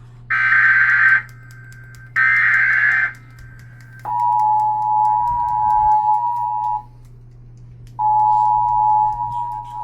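Emergency Alert System broadcast: two short bursts of SAME digital header data, which encode a Child Abduction Emergency (Amber Alert), followed about four seconds in by the EAS two-tone attention signal. The attention tone is steady, drops out for about a second, then resumes, over a low steady hum.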